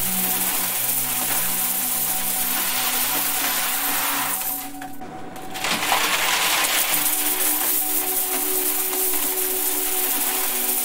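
A stream of metal coins pouring and clinking into a metal box already heaped with coins. The pour stops for about a second near the middle and then resumes. A few steady low tones sound underneath.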